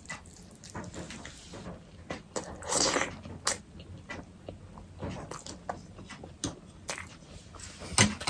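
Person eating black bean noodles with egg: wet chewing and lip smacks, a loud slurp of noodles about three seconds in, and sharp clicks near the end as a fork meets the plate.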